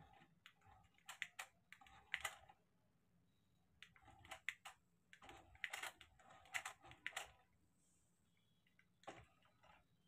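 Quiet bursts of light plastic clicking from a small toy RC car and its remote control while the car is driven, coming in four or so short clusters with quiet gaps between.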